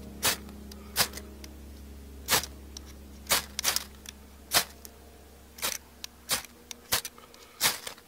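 A knife scraping in short, sharp strokes, about a dozen of them at an uneven pace, as it works at a tinder bundle on a fire lay to get a fire going.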